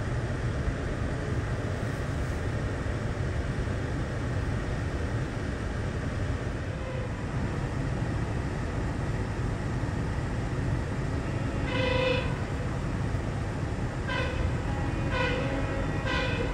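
Sounder commuter train's horn sounding one blast about twelve seconds in, then three short blasts about a second apart near the end, over a steady low rumble inside the car.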